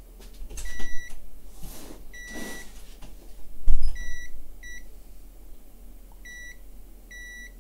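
Digital multimeter in continuity mode giving about six short, high, steady beeps, each a quarter to half a second long, as its probes touch connected points on the board. Brief rustling noise early on and one dull thump a little before the middle, the loudest sound.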